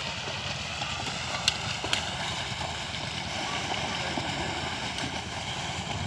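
Steady splashing and sloshing of water buffalo and a plough wading through a flooded paddy field, with two sharp clicks about a second and a half and two seconds in.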